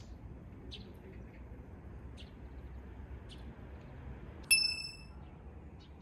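Small birds giving short high chirps about once a second over a steady low outdoor background. About four and a half seconds in, a single bright metallic ding rings for about half a second, the loudest sound here.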